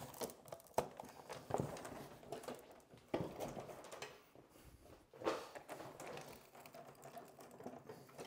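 A few scattered light knocks and taps with quieter rustling between, from thin plywood kayak hull panels being handled and spread out onto the building forms.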